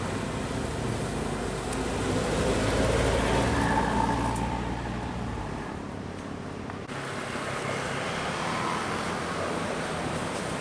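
Passing road traffic: one vehicle goes by close with a low engine rumble and tyre noise, loudest about three to four seconds in and fading after about five seconds, then steady traffic hum.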